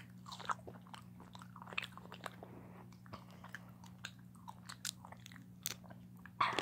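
A child chewing cocktail shrimp close to the microphone: irregular wet smacking and clicking of the mouth, with a louder short mouth noise near the end.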